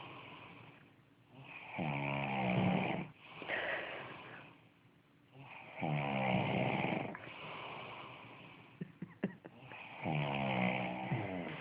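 Snoring: three long rattling snores on the in-breath, about four seconds apart, each followed by a breathy out-breath. A few short clicks sound just before the last snore.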